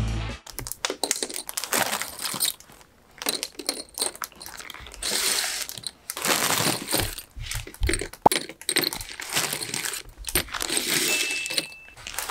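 Pop rivets being handled and counted: a plastic bag of rivets crinkling while loose metal rivets clink and rattle against one another, in irregular handfuls with many small clicks.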